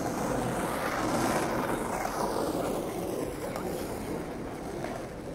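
City square ambience: a steady wash of crowd and traffic noise from people moving about an open square, a little louder about a second in.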